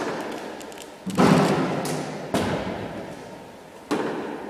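A handful of dull thumps about a second apart, the second the loudest, each followed by a long echo that dies away in a large sports hall. They fit a cricket ball being fed to a wicketkeeper: pitching on the hall floor and being taken in his gloves.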